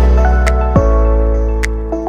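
Instrumental background music with long held notes.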